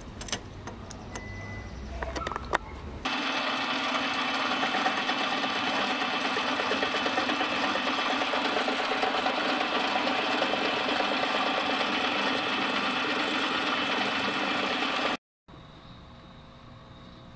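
A few sharp clicks and squeaks as an M10 × 1.5 tap is turned by hand into a 3D-printed maraging steel part. About three seconds in, a metal lathe starts sounding, running steadily with the part spinning in its chuck for about twelve seconds, then cuts off suddenly to faint room tone.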